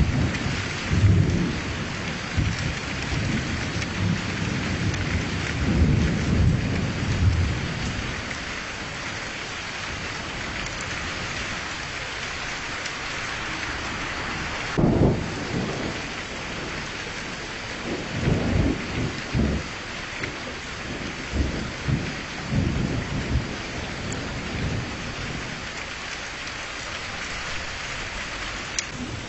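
Steady rain with several low rolls of thunder: a run of rumbles through the first several seconds, one about halfway through, and more in the latter part.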